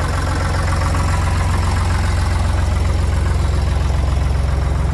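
Carraro 6.100-4 tractor's three-cylinder diesel engine, which the owner takes for a Deutz, idling steadily.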